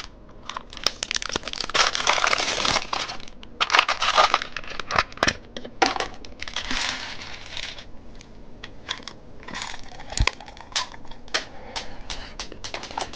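Plastic candy packaging crinkling and tearing as it is handled and opened, with scattered clicks and taps. The densest crinkling comes in stretches about two, four and seven seconds in, then thins to sparse clicks.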